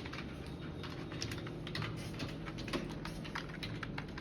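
Fast typing on computer keyboards: a quick, irregular run of key clicks during a timed race to type the alphabet.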